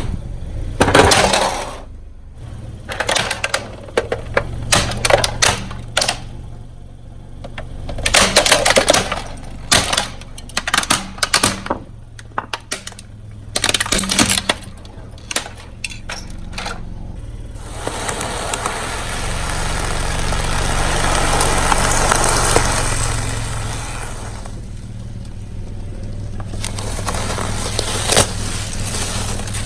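A car tyre rolling over and crushing crunchy objects: a long run of cracks and snaps, then a rushing noise that swells and fades for several seconds. A low engine hum runs underneath.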